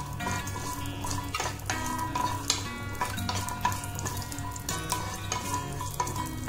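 Garlic cloves sizzling in hot oil in a nonstick frying pan while a wooden spatula stirs them, with light scrapes and taps against the pan. Background music plays throughout.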